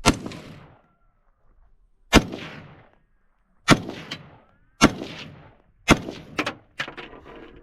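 AR-15 rifle in .223/5.56 firing five shots at uneven intervals over about six seconds, each crack followed by a ringing echo. A few lighter clicks follow the last shot.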